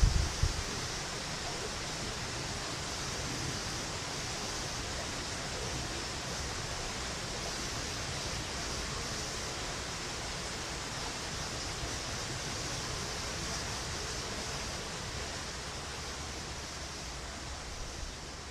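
Steady outdoor noise with wind rumbling on the microphone. A short, loud gust buffets the microphone right at the start.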